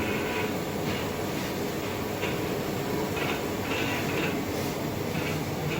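Steady mechanical rumble and hiss of running machinery, with faint short sounds in the upper range.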